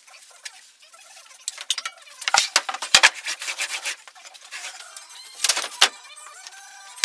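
Plywood boards and hardwood strips being handled on a table saw and workbench: rubbing and sliding with a run of sharp wooden knocks, the loudest a little after two seconds in, about three seconds in, and twice around five and a half seconds.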